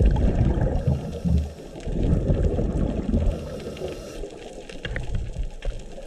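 Scuba regulator exhaust bubbles heard underwater, an irregular bubbling rumble from a diver breathing out close to the camera, loudest in the first three seconds and then dying down.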